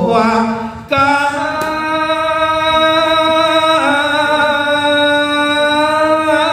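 A man's voice chanting a Buddhist homage over a microphone in the drawn-out melodic Lanna style, holding each note long. There is a short break for a breath about a second in, and the pitch shifts around four seconds in.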